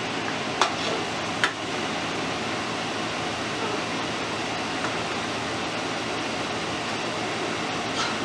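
Steady, even background hiss with no words, broken by two sharp clicks about half a second and a second and a half in, and a fainter click near the end.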